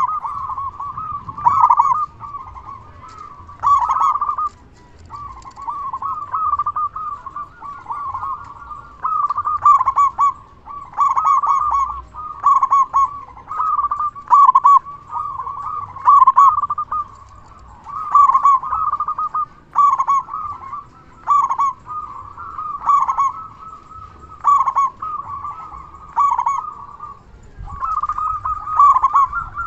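Zebra dove (local perkutut) cooing, short rolling phrases of quick coos repeated every second and a half to two seconds.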